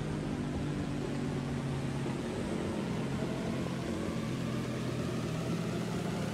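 Motorcycle engine running at a steady cruising speed, with a steady rush of wind noise on the microphone.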